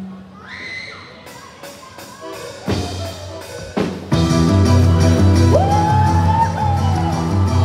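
Quadrilha junina music starting up. Evenly spaced beats build for a few seconds, then the full band comes in loud about four seconds in, with a lead line sliding up into a long held note.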